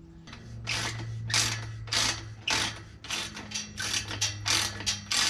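Ratchet wrench worked in quick back-and-forth strokes, about two to three a second, tightening the nut on an adjustable gate hinge bolt until it is firm.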